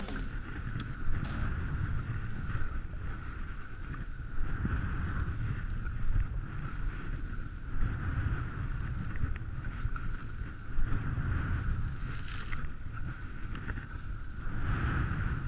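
Wind buffeting the body-worn camera's microphone in gusts during a fast ski descent in powder, with brief sprays of hiss from the skis cutting through snow.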